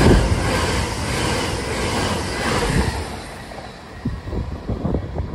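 Electric multiple-unit passenger train passing close along a station platform: a broad rush of wheel and air noise, loudest at the start, that fades after about three seconds. A few low thumps follow near the end.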